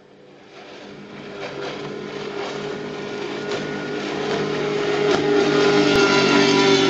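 Mariner 115 hp outboard motor on a 16-foot speedboat running flat out at a steady pitch, growing steadily louder as the boat approaches and passes close by.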